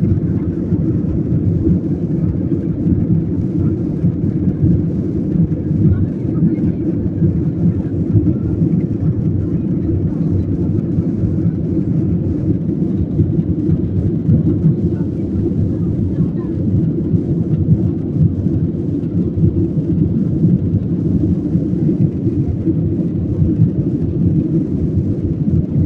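Cabin noise of an Airbus A320-family airliner climbing just after takeoff: the jet engines and rushing air heard from inside as a steady low rumble.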